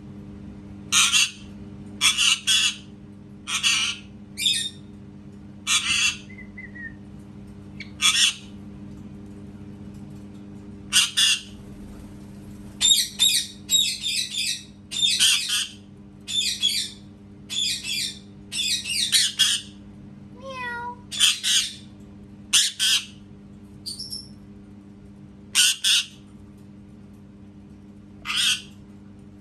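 Parrot giving a long series of short, harsh squawks, some single and some in quick runs in the middle, with a short falling whistle-like note about twenty seconds in. A steady low hum runs underneath.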